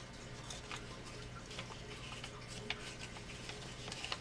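Faint handling of paper being folded: scattered light crinkles, ticks and taps, over a steady low hum.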